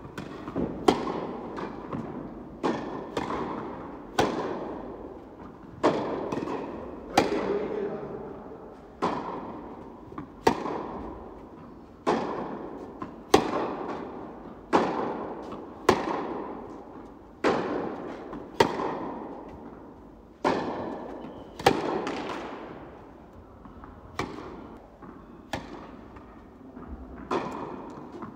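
Tennis balls struck back and forth by racquets in a rally, a sharp pock roughly every one and a half seconds, alternately louder and fainter as the near and far player hit. Each strike rings on in a long echo from the indoor tennis hall.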